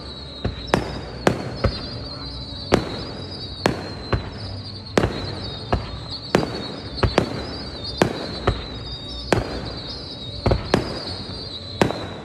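Aerial fireworks going off: sharp bangs at uneven intervals, about one or two a second, as shells launch and burst overhead. A high, wavering whistle runs underneath throughout.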